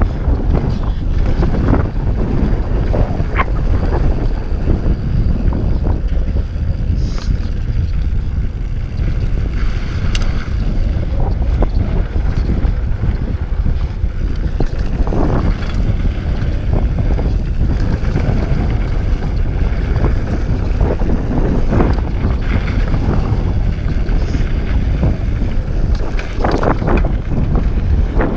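Wind buffeting the action camera's microphone on a fast mountain-bike descent, over the rumble of tyres on a dry dirt trail. Short rattles and clicks from the Scott Voltage 720 come through now and then.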